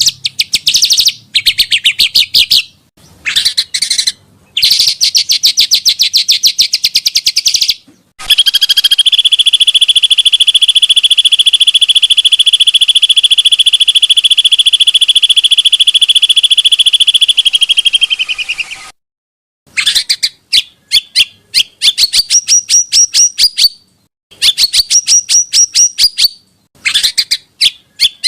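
Small songbirds singing in loud, rapid trills and chattering bursts, broken by abrupt stops. About eight seconds in, one fast rolling trill runs unbroken for about ten seconds. Near the end come short phrases that each finish in a rising sweep.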